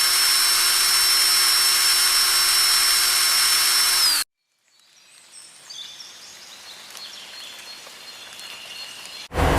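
A power tool running with a loud, steady high whine, which cuts off abruptly about four seconds in. Faint high chirping follows.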